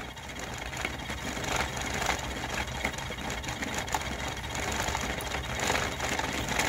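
3D-printed dual-cone pulse motor running fast, a steady low hum under a dense clicking rattle from its spinning magnet rotors; really noisy, with its two rotors not yet synchronised.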